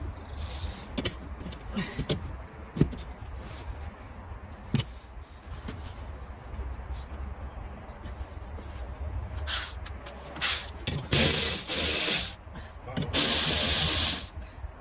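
Handling clicks and knocks, then a power tool run in several short bursts, the two longest about a second each near the end, as the windscreen wiper arm nut is undone.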